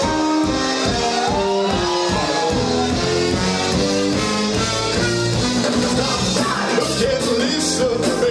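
Live band playing rock and roll, with a sung lead line and backing voices over a drum kit keeping a steady beat.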